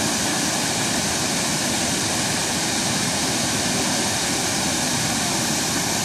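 Steady, even rush of water pouring over a low, stepped rock cascade and running through the shallow, rocky stream below it.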